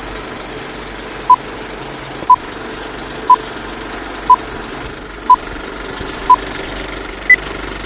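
Film countdown leader sound effect: a short beep once a second, six times, then a single higher beep, over the steady clatter and hiss of a running film projector.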